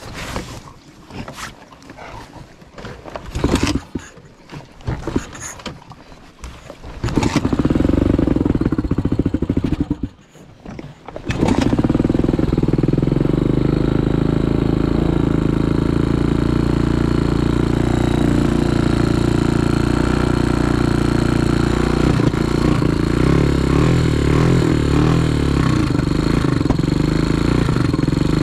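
A series of knocks and clatters, then a dirt bike's engine starts about seven seconds in, dies after a couple of seconds, starts again and runs steadily.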